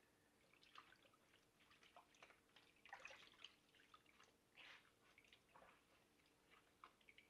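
Faint water splashing and dripping as a padded motorcycle helmet liner is squeezed like a sponge in a bowl of rinse water, in short irregular squelches.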